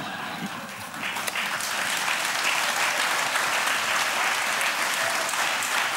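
Studio audience applauding. The clapping starts about a second in, quickly fills out and holds steady.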